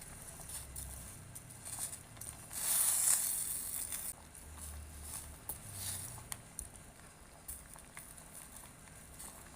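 Kitchen cooking sounds: scattered light clicks and knocks, with a louder hissing swell about two and a half seconds in that lasts about a second and a half.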